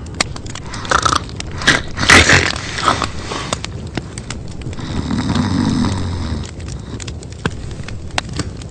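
Snoring with wet mouth smacking: a run of irregular clicks and smacks, then one long snore about five seconds in.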